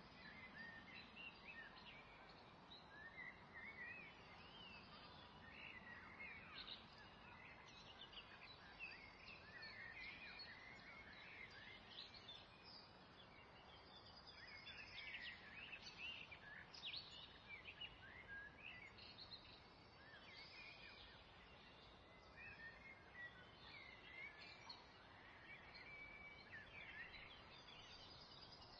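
Faint birds chirping in many short calls over a low steady hiss.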